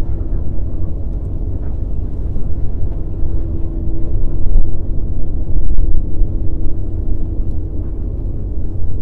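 Wind buffeting the microphone: a loud, low rumble that swells and eases with the gusts, strongest about halfway through.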